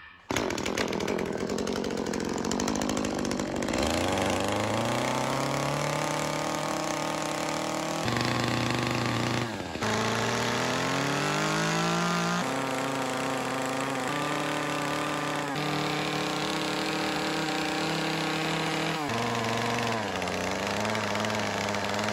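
Small top-handle gas chainsaw running and cutting into wood, its engine pitch rising as it revs up into the cut and dropping back several times. There are a few abrupt changes in pitch.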